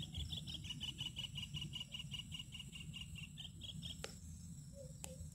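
Rapid, even train of high chirps from a small calling animal, about seven a second, stopping about four seconds in, over a faint low rumble; two faint clicks follow.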